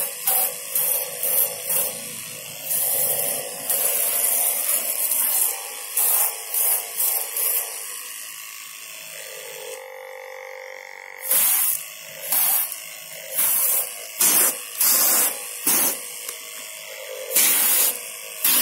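Homemade pressure washer spraying through a trigger spray gun in short hissing spurts, roughly two a second, with a pause of about three seconds midway. Its small electric pump motor hums underneath.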